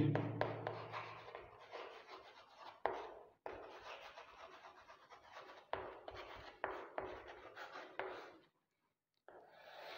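Chalk scratching across a chalkboard in short strokes, with light taps and brief pauses as words are written; the strokes stop about a second before the end.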